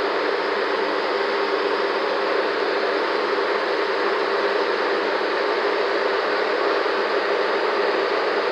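Steady, unbroken noise of heavy road-paving machinery running, the asphalt (bitumen) laying machine at work, with no distinct knocks or changes.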